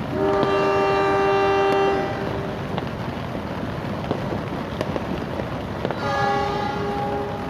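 Diesel locomotive horns sounding in the depot horn 'war': one loud blast of about two seconds at the start, then a second horn on different notes joining about six seconds in. The hiss of heavy rain fills the gap between them.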